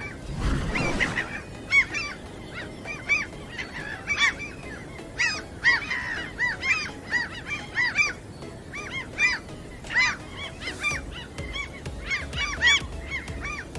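A flock of gulls calling: many short, arched, yelping calls repeated and overlapping throughout. A brief rush of noise comes near the start.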